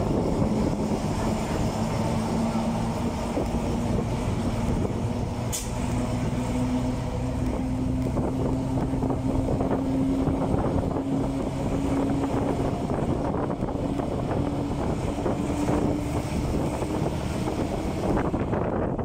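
Vintage city bus engine running while the bus drives, heard from on board as a steady drone. Its note climbs slowly for about twelve seconds, drops away, then rises again briefly. A single sharp click comes about five and a half seconds in.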